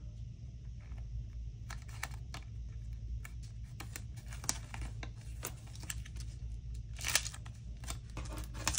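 Paper stickers being peeled from their backing sheet and sticker-book pages handled: scattered small crackles and clicks, with a longer peel or rustle about seven seconds in, over a steady low hum.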